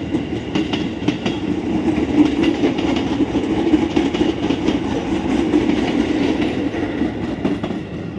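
A KRL Commuter Line JR 205-series electric multiple unit passing close by, with a steady rumble and its wheels clicking over the rail joints.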